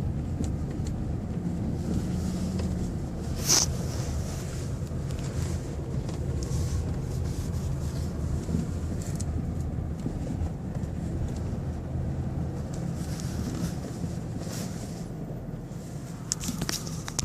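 Steady low road and engine rumble inside a 1998 Lexus LS400's cabin. There is a sharp click from the roof about three and a half seconds in and a few more clicks near the end: the roof rattle the owner is chasing.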